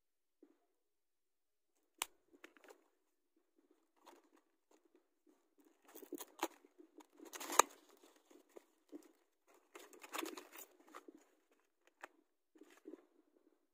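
Scissors cutting into a cardboard product box, with scattered crackles and rustles of packaging. There is a sharp click about two seconds in, and the loudest snip comes about halfway through.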